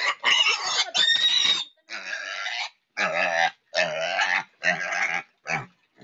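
Piglet squealing in distress at being caught and held: one long squeal, then a run of five short squeals.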